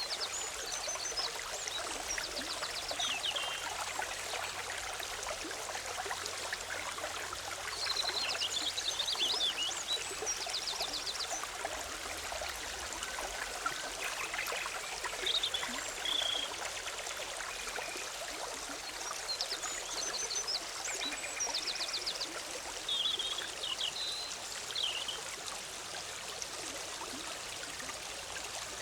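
A forest stream babbling and trickling steadily over rocks, with songbirds singing short high phrases and rapid trills several times over the water.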